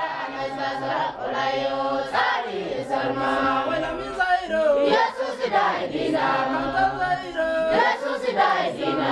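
A church congregation singing together in worship, many voices in chorus.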